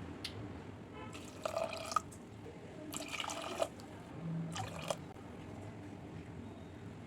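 Liquid being poured into a cooking vessel in three short spurts.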